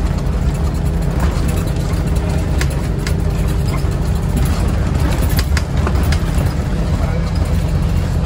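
Inside a Scania OmniCity (CN230UB) single-deck bus on the move: the diesel engine drones low and steady under road noise, with several sharp rattles and clicks from the bus's loose, worn interior fittings.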